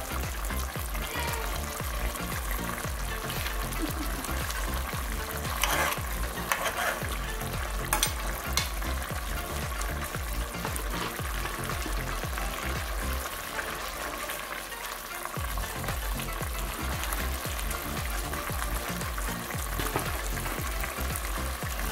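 A pot of fish stew with vegetables sizzling and bubbling on the stove, with a few clicks as a spoon is moved in the pot.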